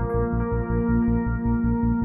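Ambient background music: held chords over a quick, steady low pulse of about five beats a second.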